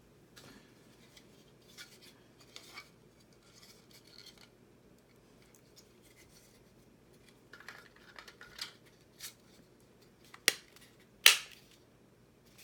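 Plastic robot-kit parts being handled: scattered light clicks and rustles, then two sharp, loud clicks about ten and eleven seconds in.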